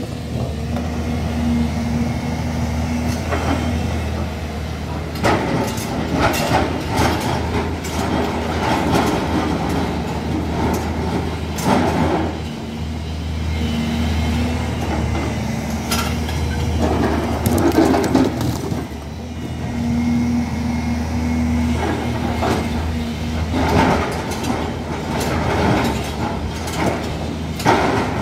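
CASE crawler excavator working in broken rock: its diesel engine drones steadily under load, and a higher hum comes and goes. Over it the bucket scrapes and rocks knock and clatter at irregular moments.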